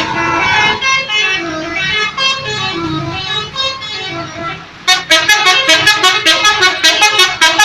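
Bus telolet horn, a multi-tone musical air horn, playing a stepping melody of loud sustained notes. About five seconds in it switches to rapid staccato toots, about six a second.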